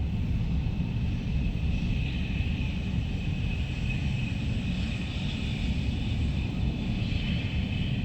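Steady low rumble of a moving vehicle with wind noise, and a faint high steady whine over it that grows a little stronger about two seconds in.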